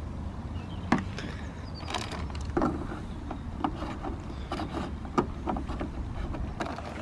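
Scattered small clicks and knocks of a car's plastic fuel cap being twisted and worked in the filler neck, irregular rather than rhythmic.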